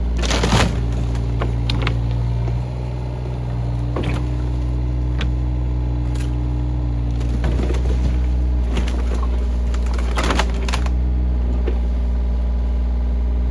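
New Holland mini excavator's diesel engine running steadily, with sharp knocks and cracks of breaking wood and debris now and then as the old barn is knocked down, the loudest about half a second in and around ten seconds in.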